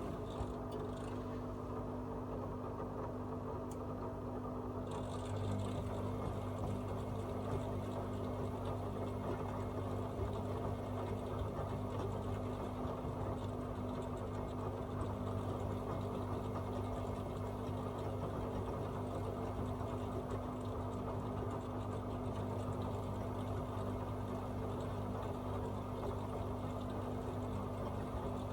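AEG Öko-Lavamat 74780 front-loading washing machine running through a 60 °C colour wash, with a steady, unbroken hum.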